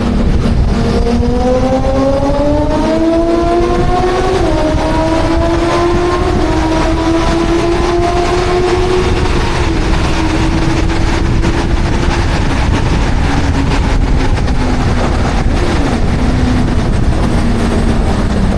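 Yamaha YZF-R1 motorcycle's inline-four engine running under steady load, its pitch rising slowly for several seconds with a brief dip about four and a half seconds in, then levelling off and falling, over a constant heavy rush of noise.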